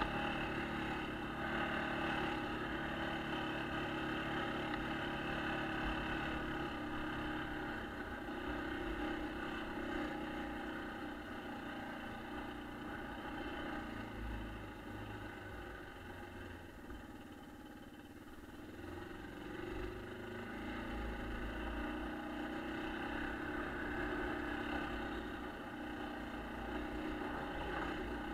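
1996 Yamaha Kodiak 400 ATV's single-cylinder four-stroke engine running steadily under way. About two-thirds of the way through it eases off, then picks back up.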